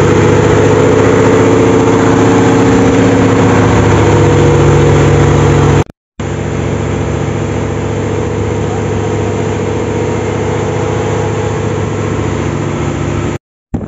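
Fishing boat's engine running steadily, loud and noisy. The sound breaks off briefly about six seconds in, returns a little quieter, and breaks off again near the end.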